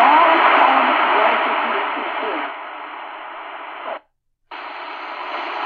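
Tecsun PL-450 portable radio's speaker playing weak shortwave reception: heavy static with a faint voice in it at first, typical of weak signal conditions. About four seconds in, the sound cuts out for half a second as the next memory preset is selected, then comes back as steady hiss.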